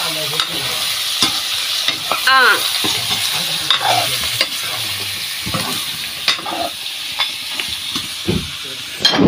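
Chicken pieces frying and sizzling in oil in a black iron karahi, with a metal ladle scraping and clicking against the pan as the meat is stirred. There is a brief squeal about two and a half seconds in and a thump right at the end.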